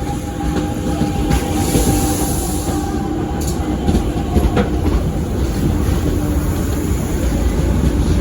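SuperVia electric commuter train moving through the station: a steady low rumble of wheels on rails with a constant motor hum, and a few sharp clicks in the middle.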